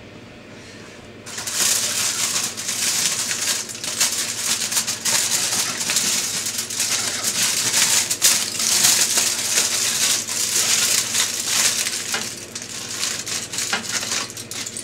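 Aluminium foil being peeled off a roasting tin and scrunched up by hand: loud, continuous crinkling and crackling that starts about a second in and eases off a little near the end.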